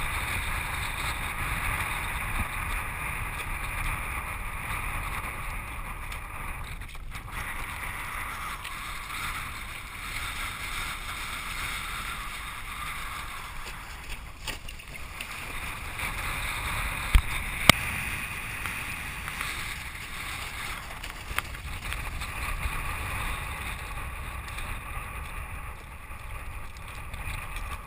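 Steady rush of wind and water on a camera sitting at water level, with choppy water churning against it. A couple of sharp knocks a little past halfway.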